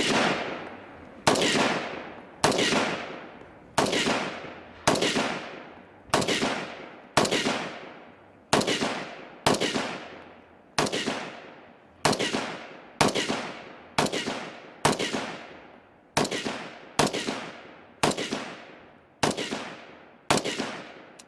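Military rifle fired from the shoulder in steady single shots, about one a second, nearly twenty in all. Each crack trails off in a long echo.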